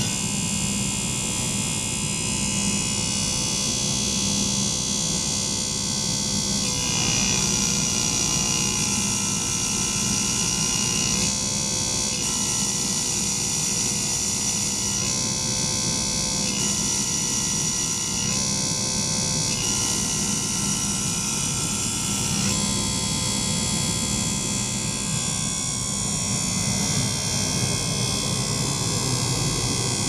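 Small liquid-circulation pump and ultrasonic probe running in a water-filled acrylic tank: a steady buzzing hum with hiss, over which faint high tones shift to new pitches every few seconds.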